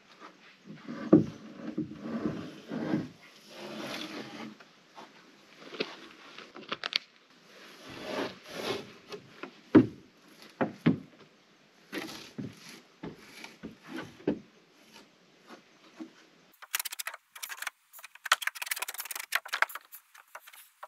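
Knocks, thumps and scrapes of rough-sawn framing lumber being handled and fitted on a wooden stud frame and floor deck, with a stretch of fast, thin crackling near the end.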